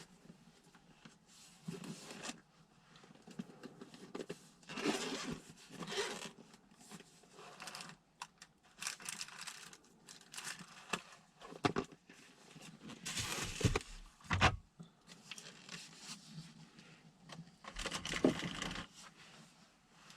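Irregular rustling, crinkling and scraping handling noises in a small room, coming in bursts of a second or two with a few sharp clicks among them.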